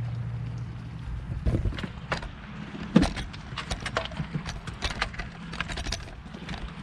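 Pool return fitting parts and gaskets being handled: scattered short clicks and taps of plastic parts, the sharpest about three seconds in. A low steady hum fades out in the first second.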